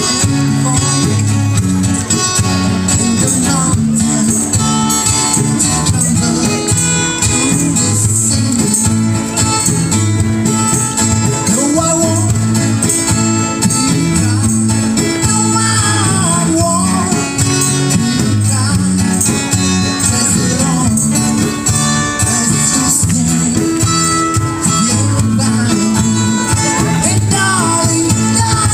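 Live band playing through small PA speakers: strummed acoustic guitar, electric guitar and a steady bass line over box-drum percussion, with a voice singing at times.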